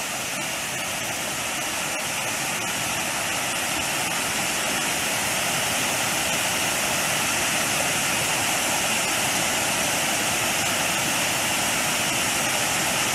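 Water rushing steadily down a small rocky stepped waterfall, growing a little louder over the first few seconds.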